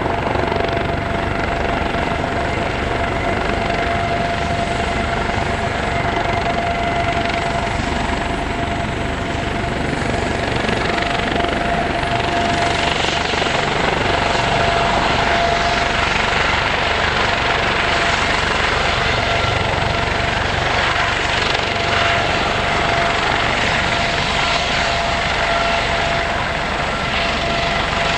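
Aérospatiale SA365N1 Dauphin helicopter running on the ground with its rotor turning while taxiing before take-off: a steady high turbine whine over dense rotor noise, growing a little louder from about ten seconds in.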